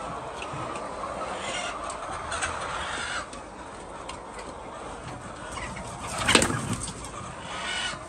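A large flock of hens clucking and stirring in a poultry shed, a steady dense chatter of many birds, with one loud sudden burst from the flock about six seconds in.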